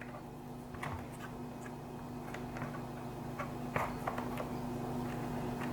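Scattered light clicks and taps of small plastic and metal parts being handled and fitted together, a grommet and washer on a console damper, over a steady low hum.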